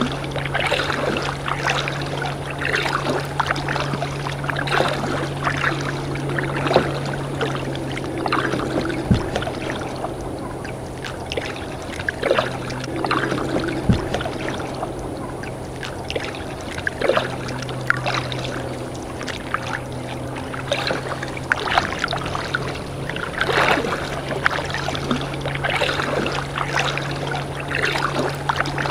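Water splashing, dripping and lapping against a kayak's hull in small irregular bursts, over a steady low hum.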